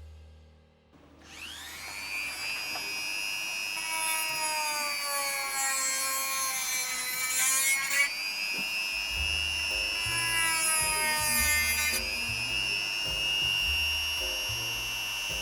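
Goxawee G4007 rotary tool's brushed motor spinning up to a high, steady whine, its pitch sagging and recovering as a mini HSS cutting disc bites into plastic, with a hiss of cutting. Background music with a bass line comes in about nine seconds in.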